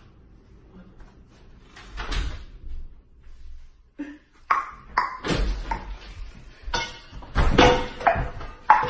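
Beatboxing: a fast run of percussive mouth sounds mixed with short pitched tones, starting about four and a half seconds in after a quiet stretch with a single knock.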